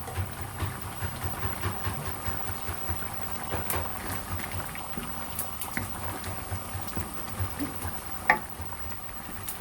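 Thick curry bubbling in a pot, with irregular low pops and small crackles. There is one sharp click near the end, the loudest sound.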